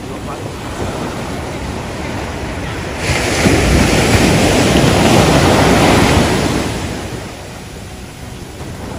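Ocean surf washing in shallow water, with wind buffeting the microphone. A wave breaks and rushes in much louder about three seconds in, fading again by about seven seconds.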